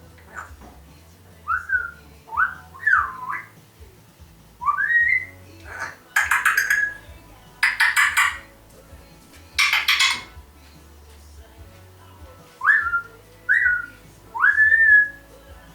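African grey parrot whistling short rising and bending notes in two clusters, with three harsh, raspy squawks in between.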